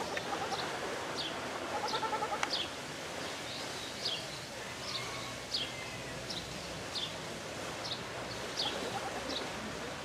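Birds calling in an aviary: a small bird repeats a short, high, falling chirp about twice a second. Around two seconds in, a rapid quavering call sounds briefly.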